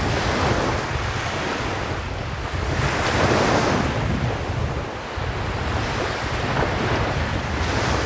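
Sea waves washing in on the shore, the surf swelling and falling back about three times, loudest about three seconds in.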